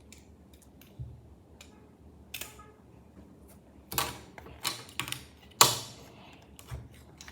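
Scattered clicks and light knocks from handling an RC model car and its packaging, with a few louder knocks past the middle.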